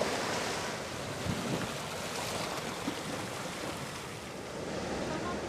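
Waves washing on a rocky shore, a steady rushing sound, with wind on the microphone.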